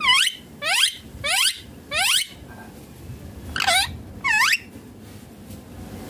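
Indian ringneck parakeet calling: six short calls, each falling in pitch, four in quick succession, then a pause of over a second, then two more.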